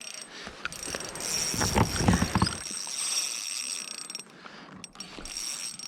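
Fishing reel being cranked to bring in a hooked fish, its gears giving a steady high whine that stops about four seconds in and resumes briefly near the end. There is a louder rumbling, rustling stretch around two seconds in.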